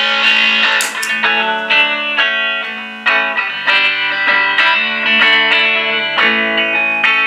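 Loud overdriven electric guitar loop from an Edwards Les Paul, distorted by a Z.Vex Distortron pedal and played through a Dr. Z Maz 18 NR head into a pine 4x10 cabinet with all four WGS Veteran 10 speakers running. Notes and chords ring and change; the sound fades a little before a new chord is struck about three seconds in.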